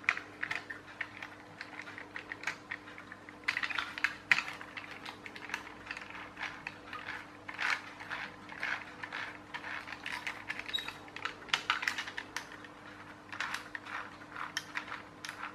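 Plastic gear train of a clockwork toy tractor clicking and ratcheting in irregular runs as its wheels and gears are turned by hand, a sign of something in the gears not making contact.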